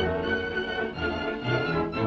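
Orchestral cartoon score: several long notes held together over short low bass notes that come and go.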